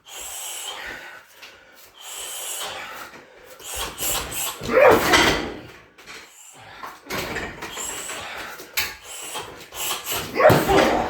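Shin kicks striking a 60 kg heavy bag: a run of irregular thuds and knocks, with two heavier hits about four to five seconds in and again about ten seconds in.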